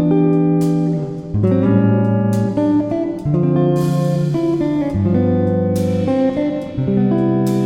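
Background music led by guitar, with plucked and strummed chords changing about once a second.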